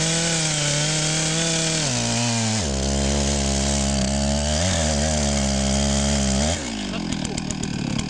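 Two-stroke chainsaw cutting into the trunk of a standing tree, its engine note dropping in pitch under load about two and a half seconds in, then falling to a lower rattling idle about six and a half seconds in.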